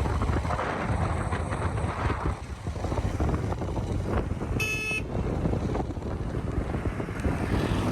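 Vehicle travelling on the road: a steady low rumble and road noise with wind buffeting the microphone, and a short high beep about halfway through.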